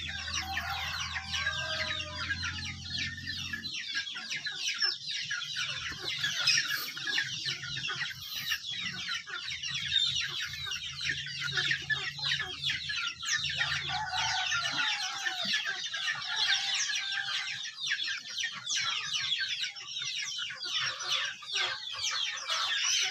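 Chickens clucking, over a dense high chirping or peeping that runs on throughout. A low hum sounds for the first few seconds and again midway.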